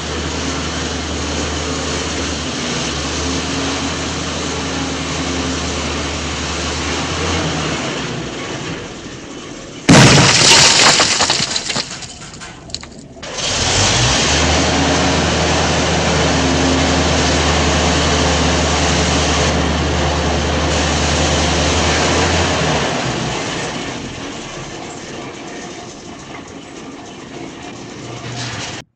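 Heavy-vehicle engine sound running steadily, broken about ten seconds in by a sudden loud crashing noise that dies away over a second or two. The engine sound then resumes and fades off near the end.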